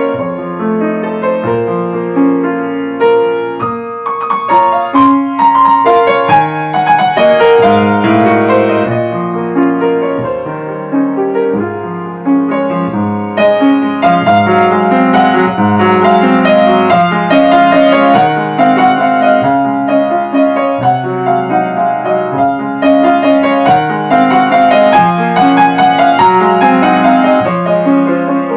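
Grand piano played solo: a waltz, many notes in quick succession over a steady bass, with livelier, brighter runs coming in and out.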